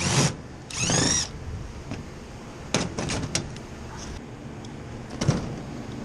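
Power drill backing out panel screws on an air-conditioning condensing unit: two short runs in the first second or so, the second rising in pitch as the motor spins up, then scattered sharp clicks and knocks.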